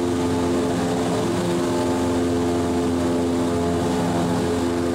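Cessna light aircraft's piston engine and propeller running at a steady drone in flight, heard from inside the cabin.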